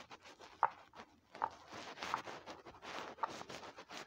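Silicone pop-it fidget toy being pressed: a few separate pops about a second apart over the rustle of hands handling the toys.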